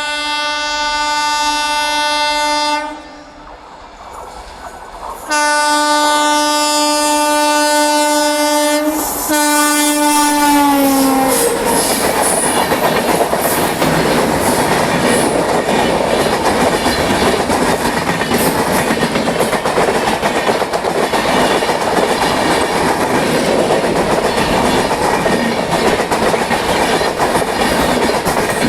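Indian Railways locomotive's twin-tone horn sounding two long blasts, the second dropping in pitch as the train passes. The train then runs past, a loud steady rush of wheels and coaches with clickety-clack over the rail joints.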